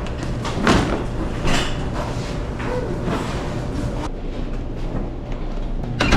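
A steady low hum with a few short knocks and clatters, the clearest about a second in.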